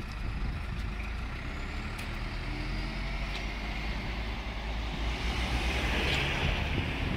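Road traffic driving over a level crossing: a flatbed lorry and cars pass with engine rumble and tyre noise, swelling to its loudest about six seconds in.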